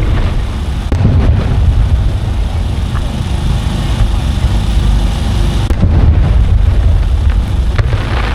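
Aerial fireworks shells bursting one after another in a dense barrage: an unbroken low rumble of booms with sharp cracks standing out about every second or two.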